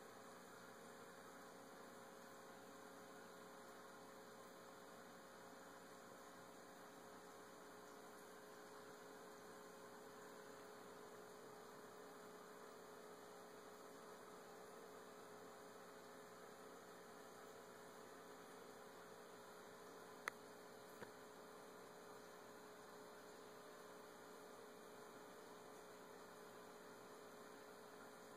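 Near silence with a faint steady hum. A sharp click comes about twenty seconds in, and a softer one follows a second later.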